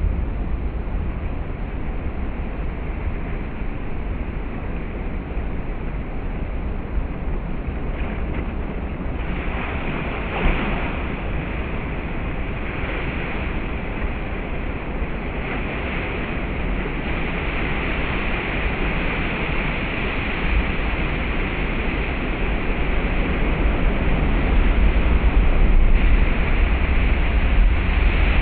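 Heavy ocean surf breaking on a rocky shore, a continuous wash of crashing waves in surges that grow louder near the end. Wind buffets the microphone with a steady low rumble underneath.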